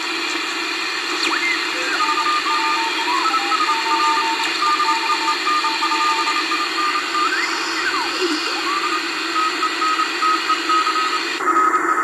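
R390A vacuum-tube shortwave receiver tuned to Morse code, with keyed beeps over a steady hiss of band noise. For the first half two Morse stations are keyed at once at slightly different pitches; after a whistle sweeps up and down in pitch about two-thirds of the way in, one station carries on alone.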